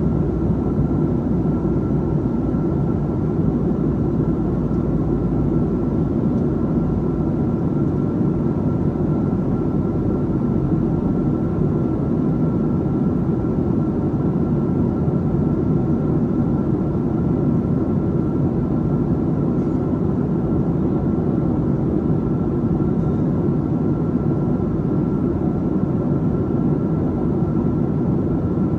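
Steady cabin noise of a Boeing 737-700 in flight on approach: a constant rush of airflow and its CFM56 turbofan engines, with a thin steady high tone over it.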